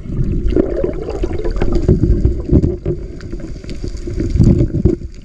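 Muffled underwater noise picked up by a camera held under the sea: a low rumble of moving water with scattered crackles and knocks.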